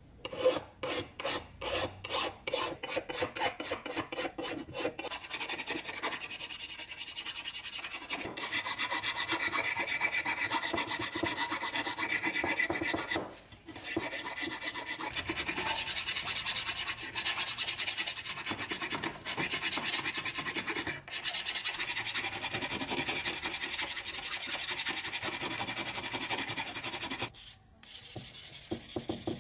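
Hand file rasping across hardened filler on a metal chainsaw handle, in quick strokes about four a second at first, then continuous. Near the end it gives way to sandpaper rubbing over the smoothed filler.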